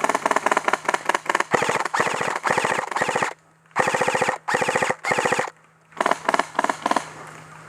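Airsoft rifle firing on full auto in repeated bursts, some short and some about a second long, then a few single shots near the end.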